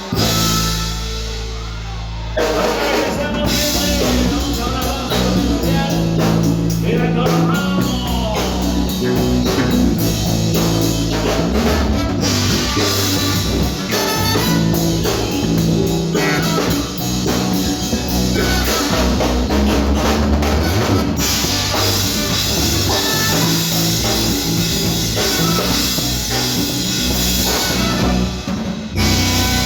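Live band music with a drum kit and a steady bass line; the full band comes in about two seconds in.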